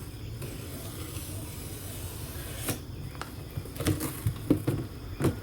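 Steady low background noise, then a sharp click and, in the second half, a quick series of knocks and thumps.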